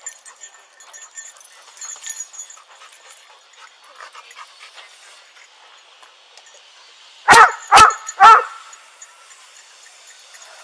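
A dog barks three times in quick succession, about half a second apart, partway through; before that there are only faint scuffs and ticks.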